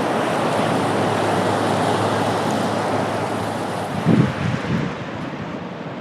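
Ocean surf washing steadily, easing off about three and a half seconds in, with wind gusting on the microphone in low thumps near the end.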